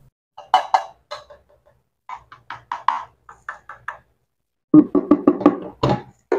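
Fingers knocking on the black basket of an Advance ADF-24A air fryer to show its material, in several runs of quick taps. The loudest run comes a little under five seconds in.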